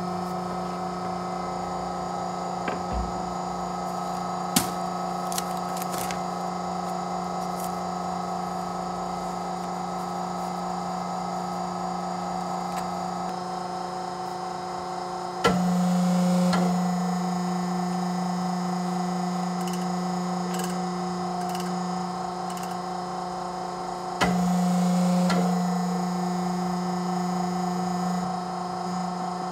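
Swing-arm clicker die-cutting press running with a steady electric hum. Twice the hum steps up louder, each time with a sharp knock, then settles back. A few light knocks come in the first few seconds.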